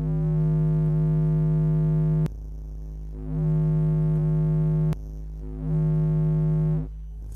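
Stock Bose 6.5-inch subwoofer of a 2011 Mazda 3 playing a 52 Hz sine test tone (the note G#1, 51.91 Hz) at about 120 dB inside the car cabin. It is a deep steady hum that three times swells into a loud, buzzing drone for one to two seconds and then drops back suddenly.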